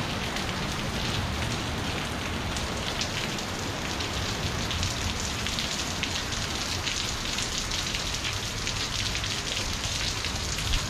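Steady rain falling, with scattered sharp ticks of drops landing close by.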